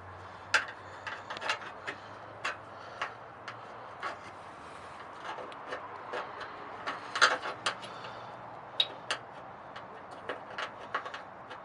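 Irregular clicks, taps and scrapes of an Allen wrench working against car body sheet metal, prying a metal lip back out of the way of a drilled hole; a louder cluster of taps comes about seven seconds in.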